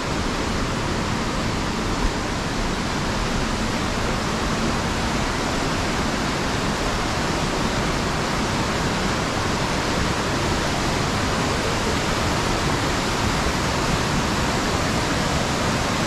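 Steady rush of fast-flowing mountain water, an even unbroken sound with no change in strength.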